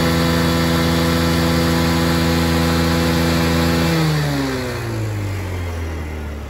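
Kymco Super 8X 50cc scooter engine held at full throttle with the CDI rev-limiter wire cut, revving steadily at a constant high pitch. About four seconds in the throttle is released and the revs fall away.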